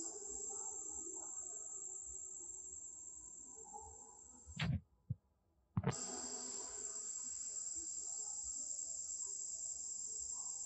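Steady high-pitched drone of insects in the trees. It cuts off with a thump about four and a half seconds in, and after about a second of near silence it starts again with another thump.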